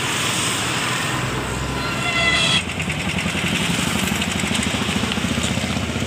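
Road traffic noise on a town street, with a vehicle horn sounding briefly about two seconds in; after an abrupt change the noise goes on with a rhythmic low pulsing.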